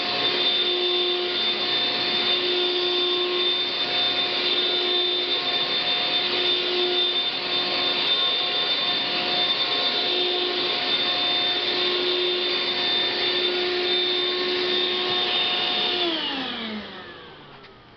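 Eureka Boss Super Lite bagless upright vacuum cleaner running steadily over carpet, its motor giving a steady whine over a rush of airflow. About sixteen seconds in it is switched off, and the motor winds down with a falling pitch.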